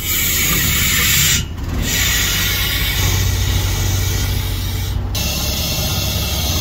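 Steady hiss of rushing air from the job-site hoses over a low machine hum, broken by two short dips about 1.5 and 5 seconds in.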